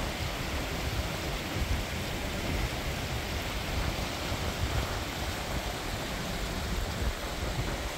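Steady rushing of a mountain stream cascading over rocks, with an uneven low rumble of wind on the microphone.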